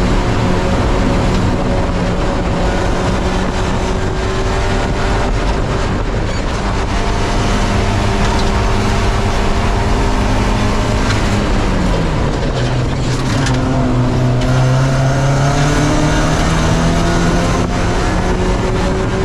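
Spec Miata's inline-four engine running at race pace: the revs hold steady, drop sharply about twelve seconds in, then climb steadily again. Tyre and wind noise run underneath.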